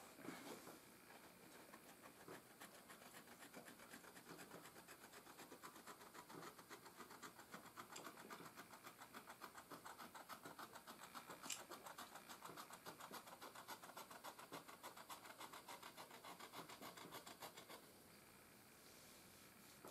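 Faint, fast, even scratching of hands working thread and buckskin, with one sharp tick about halfway through; it stops a couple of seconds before the end.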